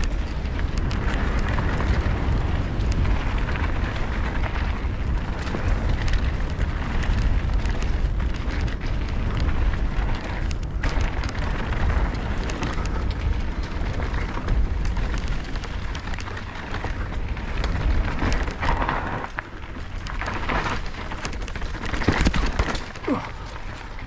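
Mountain bike riding fast down a dirt trail: a steady rush of wind buffeting the helmet-camera microphone and tyre noise on dirt and loose stones, with frequent short clatters from the bike over bumps.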